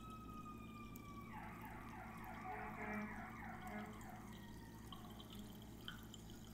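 Sparkling water poured from an aluminium can into a glass at an angle, faint. Over it a faint siren-like tone wavers, then changes into a quicker warble from about one to four seconds in.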